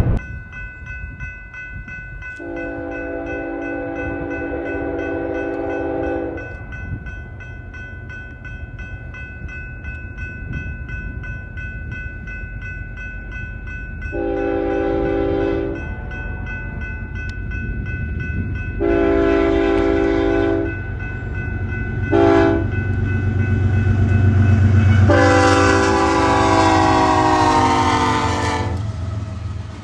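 BNSF freight locomotive's multi-note air horn sounding a long blast, then long, long, short, long: the standard grade-crossing signal. Underneath are the low rumble of the locomotive's diesel engines and the train, which grows louder near the end, and a steady high whine.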